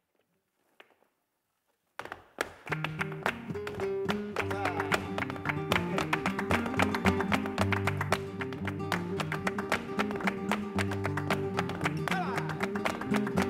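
Flamenco soleá: after about two seconds of near silence with a few faint taps, flamenco guitar comes in with a dense run of sharp percussive strikes from the dancer's footwork and hand clapping.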